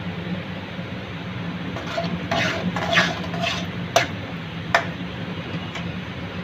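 Metal spatula stirring and scraping thick semolina halwa being roasted in ghee in a metal karahi, a run of scrapes about two to four seconds in, then sharp clinks of the spatula against the pan at about four and five seconds. A steady low hum runs underneath.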